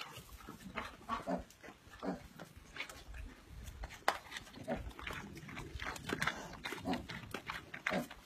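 A pig grunting in short bursts as it eats, over the clicks and crunches of animals munching chopped vegetables.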